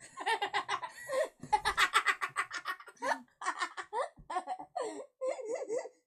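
Girls laughing in quick repeated giggles, broken by a few short pauses.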